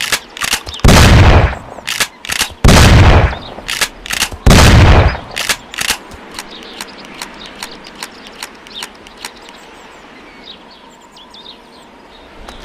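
Winchester pump-action shotgun fired three times, about two seconds apart, each loud blast with a rumbling tail and followed by the sharp clicks of the slide being racked. After that comes a run of lighter metallic clicks that thins out, and faint bird chirps near the end.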